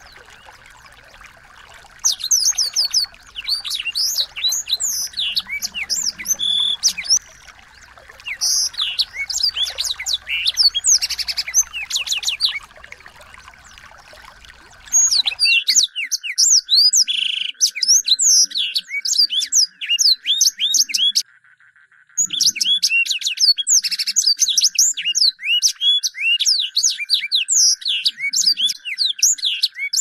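Small songbirds singing: rapid, high-pitched twittering of quick chirps and sweeps in bursts of a few seconds, with short pauses between them. A faint steady hum lies under it, and a low background rumble cuts off suddenly about halfway through.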